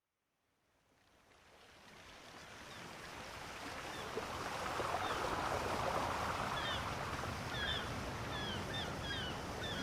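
Outdoor nature ambience fading in from silence: a steady rushing noise like surf, with small birds chirping over it in the second half.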